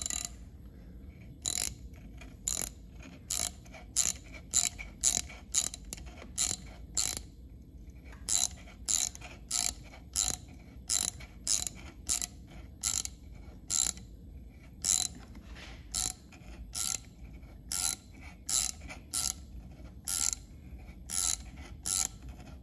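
Mini ratchet clicking as it turns a thread tap cutting new threads into a stripped bolt hole in a chainsaw engine case. Sharp clicks come about one or two a second in uneven runs, with a couple of short pauses.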